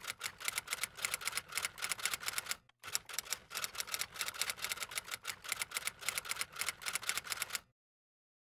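Typewriter typing sound effect: rapid key clicks, about seven or eight a second, with a short pause near the three-second mark, stopping about a second before the end.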